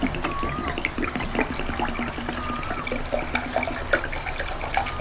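Water pouring in a steady stream from a plastic bottle into a large glass bowl, splashing into the water already in the bowl.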